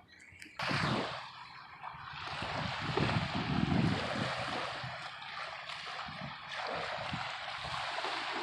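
Wind gusting on the microphone, heard as uneven low buffeting over a steady rushing hiss, which starts suddenly about half a second in.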